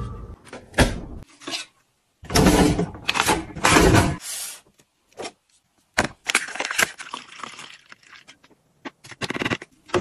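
Close-up handling sounds in short separate bursts. Aluminium drink cans and a plastic bottle knock and clatter as they are set onto a refrigerator shelf, a plastic refill pouch rustles, and plastic parts click near the end.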